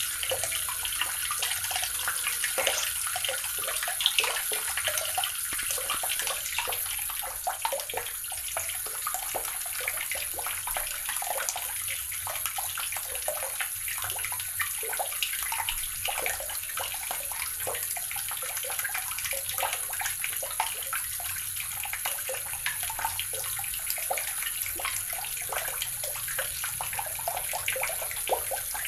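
Water running steadily from a tap and splashing into a basin or tub below, a continuous spattering rush.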